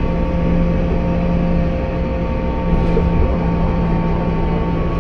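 Scania K280UB bus heard from inside the cabin while under way: a steady engine and drivetrain drone over road rumble, with an odd steady whir on top.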